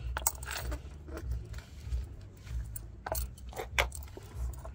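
Small metal objects (keys, nuts, coins) clinking and rattling as they are handled and dropped into a washing machine's pump filter housing, in a few scattered clicks.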